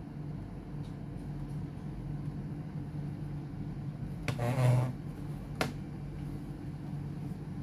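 A steady low hum, with a brief scraping handling noise a little past four seconds in and a single sharp click about a second later.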